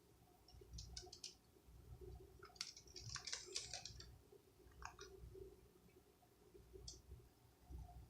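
Near silence with a few faint clicks and ticks, a denser cluster of them about three seconds in.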